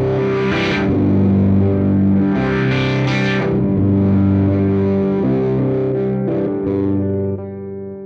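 Electric guitar played through a Moog MF Drive overdrive pedal (ladder filter, JFET circuit): sustained distorted chords. The pedal's filter knob is being turned, so the tone sweeps bright about half a second in and again around three seconds in, then darkens.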